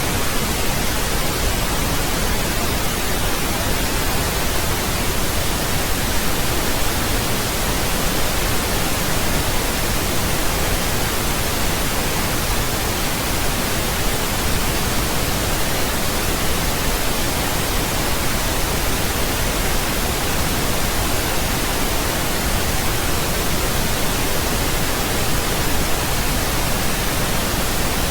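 Steady synthetic pink noise: an even, unchanging hiss spread across the whole range, without tones or breaks.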